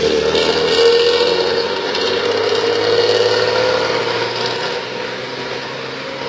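Bus with a loud aftermarket racing exhaust running by: a steady, droning exhaust note that swells in the first second, then slowly fades away over the second half.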